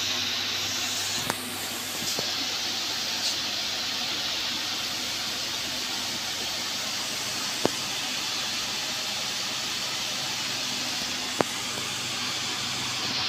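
Steady hissing noise over a low hum, with a few sharp clicks.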